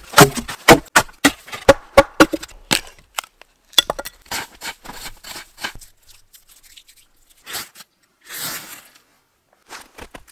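Wood being chopped, quick sharp knocks about four a second for the first three seconds, then a run of scraping strokes on birch bark. Near the end a short rasping swish, and dry tinder shavings start to crackle as a small flame catches.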